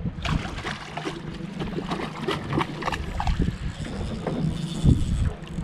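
Small waves slapping and sloshing against the side of an aluminium boat's hull as a run of short, irregular splashes.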